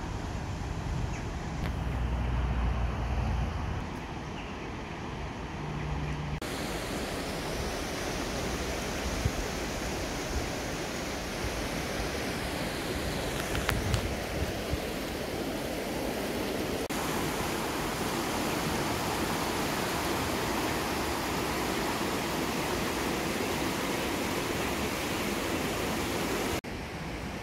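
Shallow river water rushing over stones and gravel riffles: a steady, even rush, changing abruptly a few times where the shots are cut, with a low rumble under it in the first few seconds.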